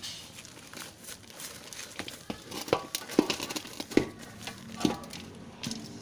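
Black plastic nursery bag crinkling as it is handled and filled with potting soil over a plastic basin. There are scattered sharp crackles, most of them between about two and five seconds in.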